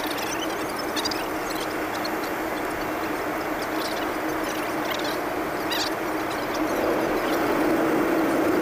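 Steady vehicle drone with a constant low hum, faint high chirps or ticks scattered through it, growing a little louder near the end.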